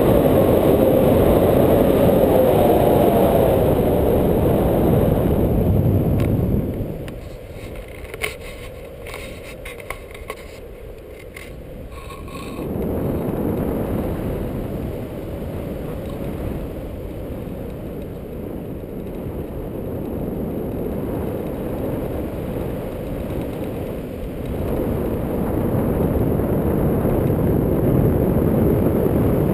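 Wind buffeting an action camera's microphone in a tandem paraglider flight: a loud, steady rush of air noise that eases off for several seconds partway through, with a few faint clicks, then comes back.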